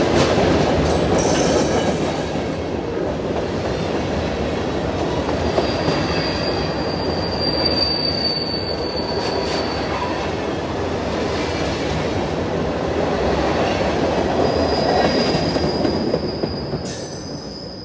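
Freight train's covered hopper cars rolling past close by: a steady rumble and rattle of wheels on the rails. A thin, high wheel squeal rises over it from about six to ten seconds in and again near the end.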